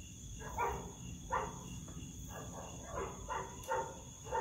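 Crickets trilling steadily and high-pitched, with a series of soft, short sounds coming every half second or so.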